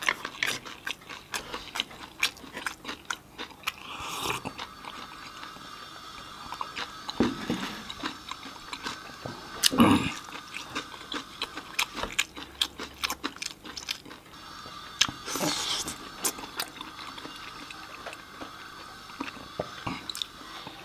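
Close-miked chewing of chicken chowmein noodles, with many small mouth clicks and a few louder bursts.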